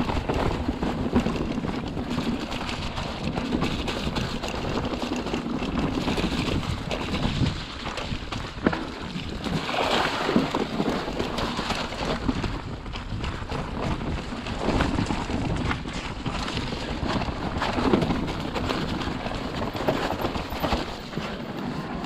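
Wind buffeting a GoPro action camera's microphone while an electric mountain bike rides down a rough trail, with tyres on loose ground and the bike knocking and rattling over bumps.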